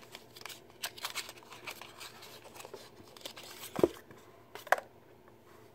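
Small cardboard nail-polish carton being handled and opened: scratchy rustling and scraping of the card, with two sharper clicks about a second apart past the middle.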